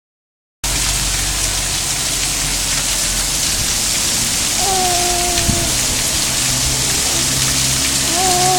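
Rain falling steadily, a dense, even hiss. A short tone sounds briefly about halfway through and again near the end.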